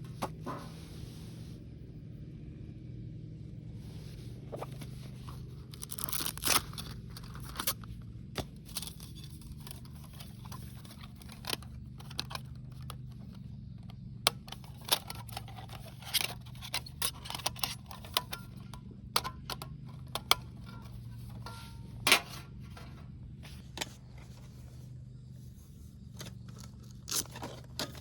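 Small objects being handled: scattered clicks, light knocks, scrapes and crinkling, with a few louder clacks, over a steady low hum.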